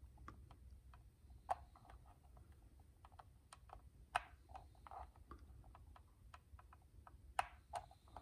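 Faint, scattered small clicks and light scrapes of a blade and fingers working a plastic model train body shell loose from its clips, with sharper clicks about a second and a half in, around four seconds, and twice near the end.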